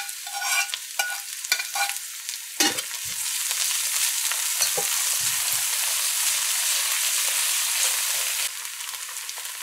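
Onions and chopped scallions sizzling in hot oil in a metal karahi while a metal spoon stirs them, clinking and knocking against the pan. The sizzle grows louder about three seconds in and drops back near the end.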